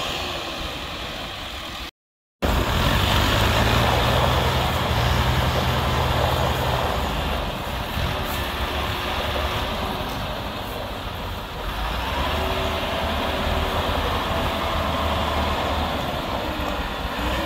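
Tractor diesel engines running hard under heavy load, pulling a loaded sugarcane trolley stuck in mud; a steady, loud low drone. There is a brief dropout about two seconds in.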